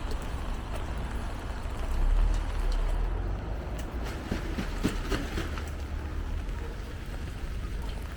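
Rainy city street ambience: a steady wash of rain and traffic noise, with a low vehicle rumble swelling about two seconds in, and a cluster of light ticks around the middle.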